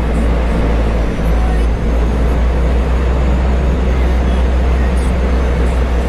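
Seaplane's turboprop engines running at low power as it taxis on the water: a steady, loud drone with a heavy low rumble.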